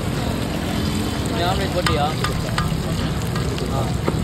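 Food frying and sizzling on a street-stall griddle, with a few sharp clinks about halfway through and another near the end.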